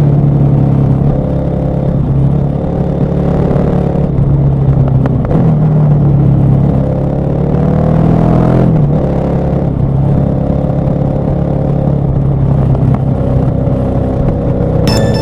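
KTM 1190 Adventure R's LC8 V-twin engine running under way, heard from the rider's seat. The revs climb and fall away twice, about five and eight and a half seconds in.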